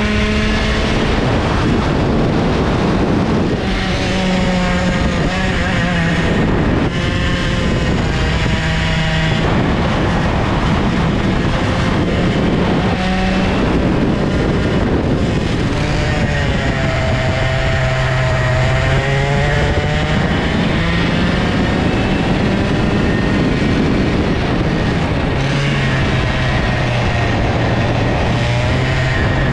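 Old IAME two-stroke kart engine at racing speed, heard from the kart. The revs hold high on the straights, drop away into corners, and climb back out, most clearly about halfway through and again near the end.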